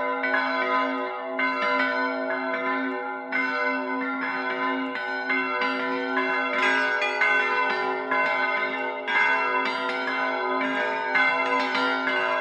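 Background music of ringing bell-like tones, with new notes struck every second or two over held ringing.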